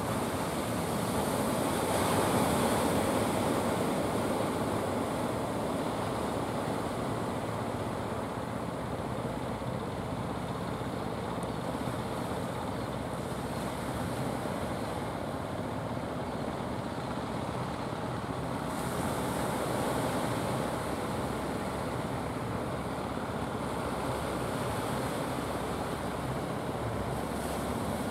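Steady wash of surf and wind on the microphone, with the low, steady drone of fishing boat engines underneath.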